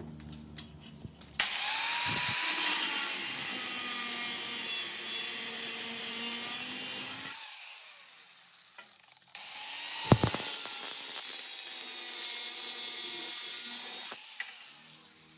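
Electric power tool running in two bursts of about six and five seconds, each with a loud high-pitched whine.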